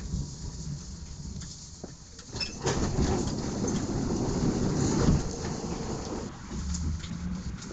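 Tram running, heard from inside the car: a steady low rumble of wheels on rails, growing louder and rougher for a few seconds from about two and a half seconds in before settling back.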